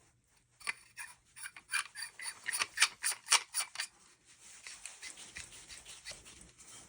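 Aluminum staff sections and their metal tool parts being handled: a quick run of small metal clicks and scrapes for about three seconds, then softer rubbing and scraping.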